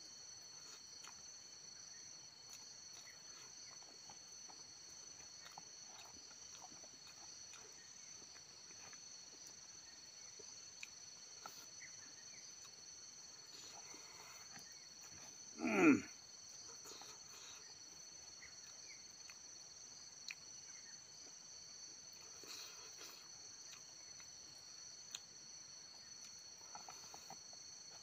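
Insects chirring steadily, a constant high-pitched drone. About halfway through, one short, loud pitched call cuts in briefly.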